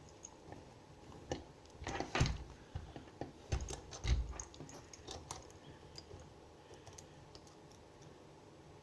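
Small metal clicks and a few heavier knocks from handling lock-picking tools against a Medeco cabinet lock, bunched together in a few seconds in the middle.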